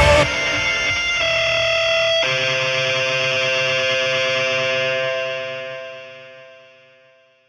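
Background music ending: sustained guitar chords, with a new chord struck about two seconds in that rings out and fades away over the last few seconds.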